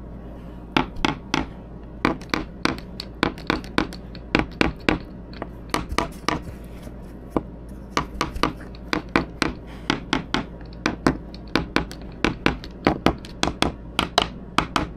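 Quick, sharp tap-test knocks, mostly in groups of two or three, on a cured fiberglass overhead repair filled with teak core and thickened epoxy, checking for voids. The taps sound alike, the sign of a good bond in the fill.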